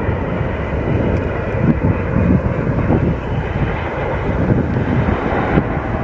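Airbus A380's four jet engines rumbling steadily as the airliner passes low on final approach to land, with a faint whine above the rumble.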